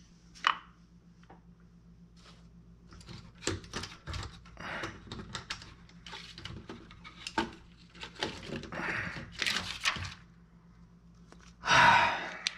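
Small objects being handled on a wooden worktable: a clear plastic jar and its lid, and sculpting tools picked up and set down. Scattered light clicks, knocks and short scrapes, with one louder scraping rustle near the end.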